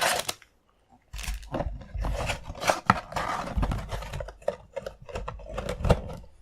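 Trading card box and packs being handled and torn open: irregular rustling, crinkling and tearing with sharp clicks and knocks, after a short pause about a second in.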